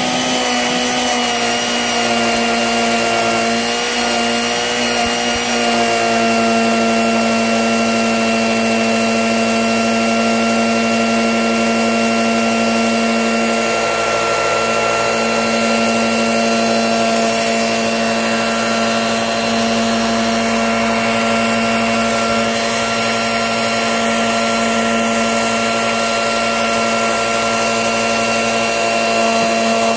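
A small electric motor running continuously with a steady whining hum over a hiss; its pitch wavers slightly for the first few seconds, then holds steady.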